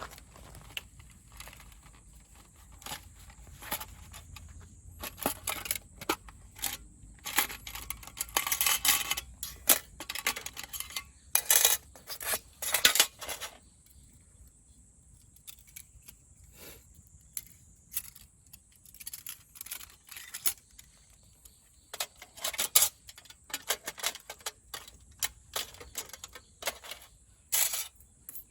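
Small metal items being handled: irregular light clinks, rattles and rustles in short runs, busiest in the first half, under a faint steady high insect buzz.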